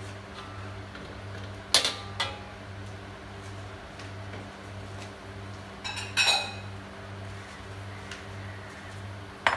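Metal ladle clinking and scraping against a metal wok while stirring cinnamon sticks and star anise in hot oil: two sharp clinks about two seconds in, a quick cluster around the middle and another near the end, over a steady low hum.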